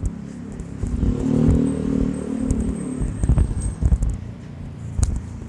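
A motor vehicle passes close by on the street, its engine note swelling for about two seconds and fading, over repeated low thumps from walking with the microphone.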